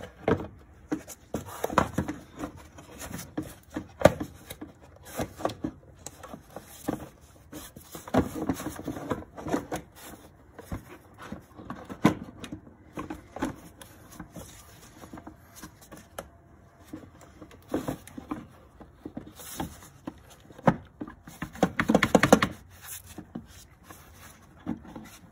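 Hard plastic air box cover being worked into place over the air filter: irregular knocks, taps and scrapes of plastic on plastic as its tongues are pushed into their tabs, with a burst of louder knocks near the end.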